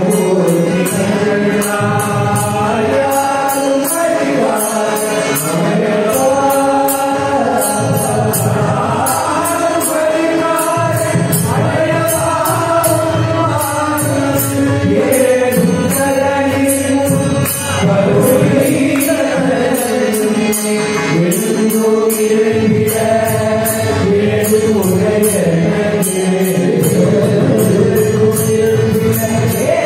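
Carnatic devotional song sung by men's voices, with a mridangam drum and steady percussion keeping the beat.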